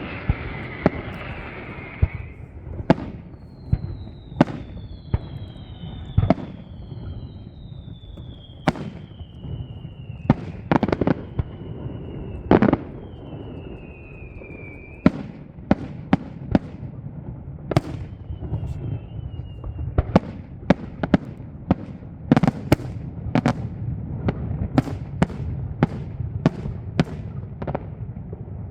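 Fireworks display: aerial shells going off in sharp bangs, at times several a second, mixed with falling whistles that each glide down in pitch over a second or two. A hiss sounds in the first couple of seconds.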